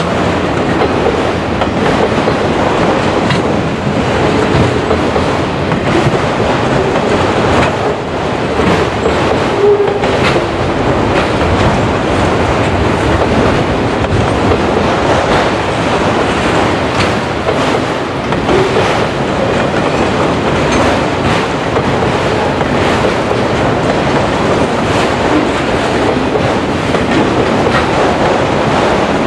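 Enclosed autorack railcars of a freight train rolling past close by: a steady rumble of steel wheels on rail, with a continual clickety-clack of wheels over the rail joints.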